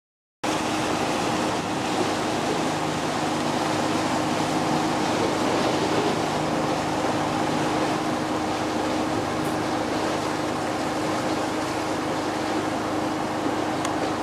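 Boat engines running with a steady low hum, over the wash of water and wind in a harbour. The sound starts abruptly about half a second in and stays even throughout.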